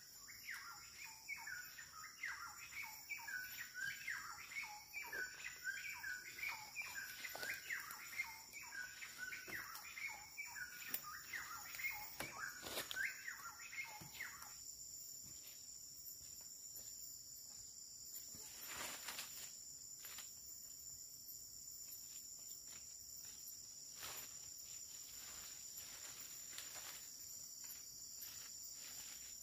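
Forest insects keeping up a steady high-pitched drone, with a bird singing quick repeated chirping notes that stop about halfway through. Scattered faint taps sound now and then.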